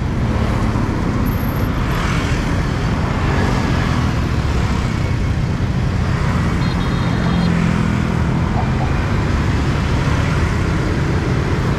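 Steady city road traffic, engines and tyres running continuously with no break.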